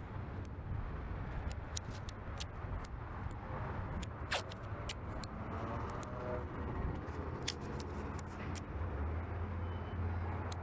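Scattered clicks and crackles of masking tape being torn and pressed down, over a steady low rumble of wind on the microphone that strengthens near the end.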